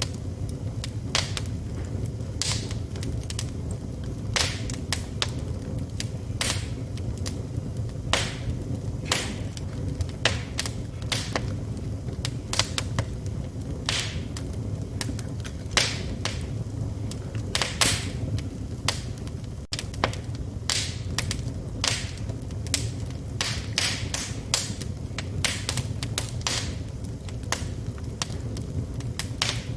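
Wood fire burning in a fireplace: a steady low rumble of flames with sharp, irregular crackles and pops from the burning logs, several a second at times.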